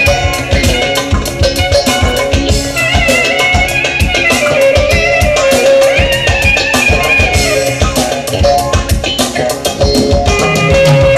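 Live band music: a clarinet plays a winding, ornamented melody over electric guitar and a drum kit keeping a steady beat.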